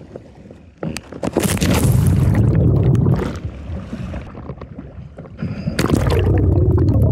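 Sea water sloshing and splashing around a camera held at the water's surface, with heavy low rumbling of water and wind on the microphone. Near the end a scuba diver plunges in beside it: a burst of splashing and bubbles.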